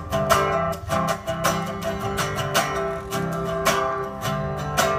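A resonator guitar and an acoustic guitar strummed together in a steady rhythm, about two to three strokes a second, with no singing.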